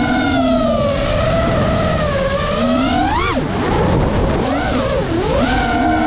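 GEPRC Mark 5 FPV quadcopter's brushless motors and propellers whining, the pitch rising and falling with the throttle. There is a sharp climb in pitch about three seconds in, then a quick drop.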